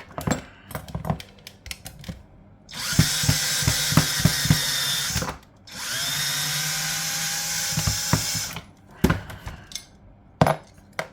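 Power drill run twice to undo screws, each run about two and a half seconds, the motor rising in pitch as it spins up on the second run. Short clicks and knocks of handled parts come before and after.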